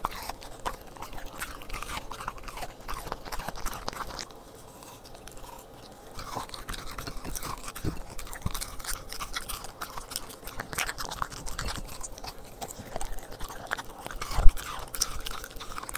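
A corgi chewing and eating pieces of frozen liver treat off a plate: close, rapid small clicks of teeth and mouth, with a quieter pause of about two seconds a few seconds in. One sharp knock sounds near the end.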